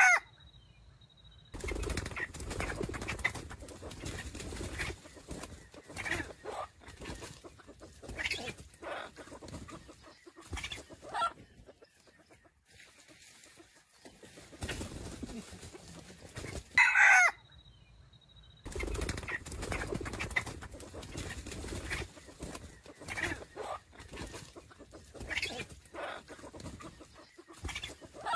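Red junglefowl roosters fighting: repeated bouts of wing flapping and scuffling, with clucks. A short, loud crow comes right at the start and another about 17 s in.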